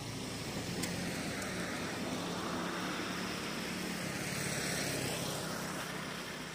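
Road traffic passing: a car's tyre and engine noise swells to a peak about four to five seconds in, then fades, over a steady low engine hum.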